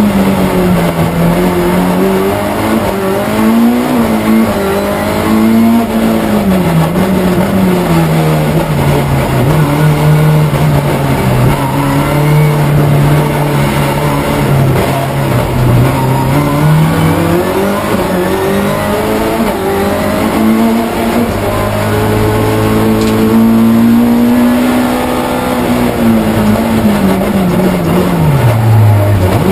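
Ford Escort RS race car's 2.5-litre Millington Diamond Series four-cylinder engine, heard from inside the cabin, revving up and down through the low gears. Its pitch climbs and falls several times, holds lower and steadier for several seconds midway, then climbs again and drops sharply near the end.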